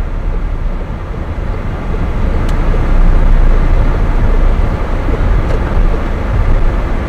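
A car slowing down on a town street, recorded by a dashcam inside the cabin: a steady low rumble of engine and tyres on the road.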